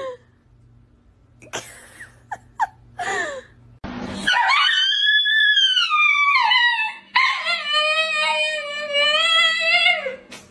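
Husky-type dog howling from about four seconds in: one long call that rises and then falls in pitch, then a second long, wavering held call.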